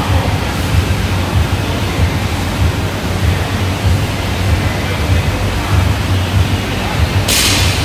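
Loud steady rushing noise with a heavy low rumble. Near the end comes a short bright metallic clatter as the loaded barbell's plates knock together on the way down.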